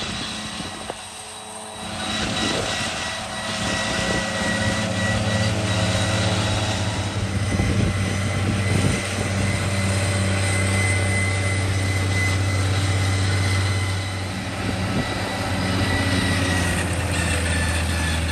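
Farm tractor engine running steadily under load, with a thin high whine above it. It builds up about two seconds in.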